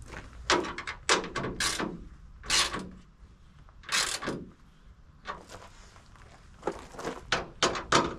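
Irregular short knocks and clicks, about a dozen spread unevenly, from a truck grille and its screws being handled and fitted into place.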